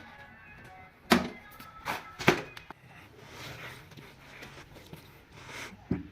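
Two sharp knocks a little over a second apart, with a few fainter knocks and faint background music.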